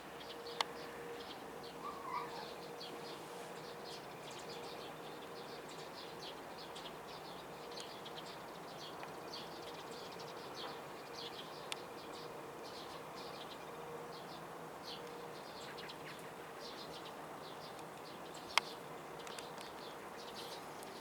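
Faint outdoor ambience: many short, high chirps scattered throughout over a faint steady hum, with a couple of sharp clicks, one a little after the start and one near the end.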